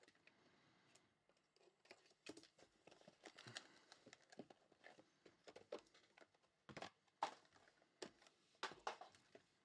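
Plastic shrink wrap crinkling and tearing as a sealed trading card box is unwrapped and opened by hand, with quiet scattered crackles, rustles and light knocks of the box and packs being handled.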